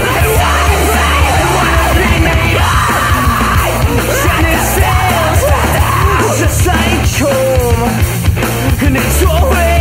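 Studio recording of a loud rock song: a shouted, sung lead vocal over a full band with heavy bass and drums.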